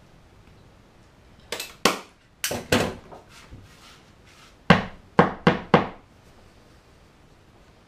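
A hand staple gun snapping staples through upholstery fabric into a wooden seat base, four shots in the first three seconds. About two seconds later come four quick hammer knocks on the stapled edge, about a third of a second apart.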